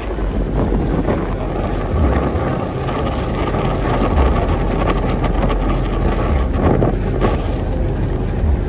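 Wind buffeting the microphone on a sailboat under way, with a steady rushing noise and irregular low thumps.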